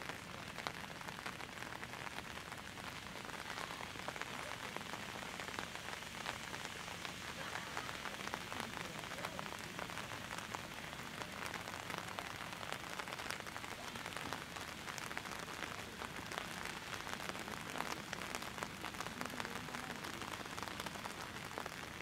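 Steady rain falling: an even hiss with a dense scatter of small drop ticks.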